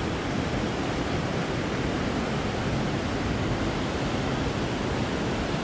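Fast, shallow brook water rushing over rocks in a riffle, a steady even rush close around the listener.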